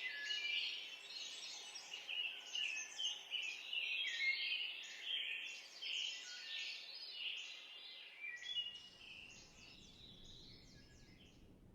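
Several birds chirping and singing in a busy, overlapping chorus of short, high calls. The chorus fades away over the last few seconds.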